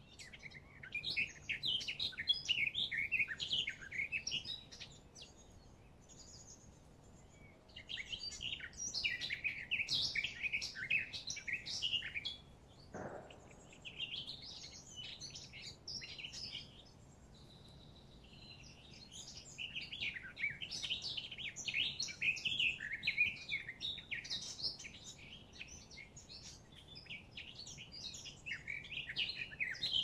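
Songbirds singing in long, quick, twittering phrases lasting several seconds each, with short pauses between phrases.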